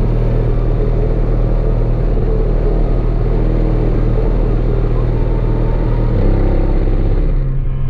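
A truck's car-audio system, four 15-inch subwoofers in a blowthrough box, playing loud, heavy bass music, heard from outside the truck. The low bass note shifts about six seconds in.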